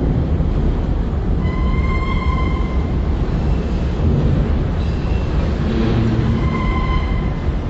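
Enclosed autorack freight cars rolling past close by, a steady heavy rumble of steel wheels on rail. A thin high wheel squeal rises over it twice, about a second and a half in and again near six seconds.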